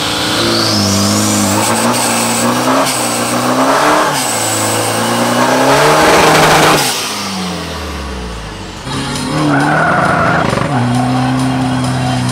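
Diesel engine of a pro-street 4x4 drag truck revving hard and loud, its pitch rising and falling several times. Around eight seconds in it drops back, then comes up again and holds.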